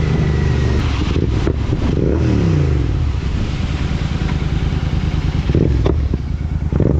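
Motorcycle engine running while riding. Its pitch falls about two seconds in as it slows, then it runs steadily, with a few sharp pops near the end.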